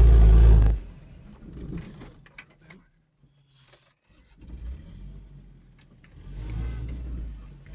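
Toyota Land Cruiser engine running loud, then cutting out suddenly less than a second in: the engine stalls when the brake is applied on the bank. After a few scattered clicks and near silence, the engine starts again about four seconds in and runs, growing louder near the end.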